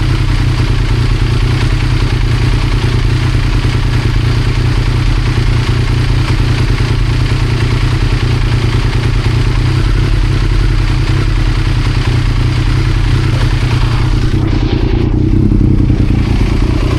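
2000 Triumph Daytona 955i's inline three-cylinder engine idling steadily, its tone shifting slightly about fourteen seconds in.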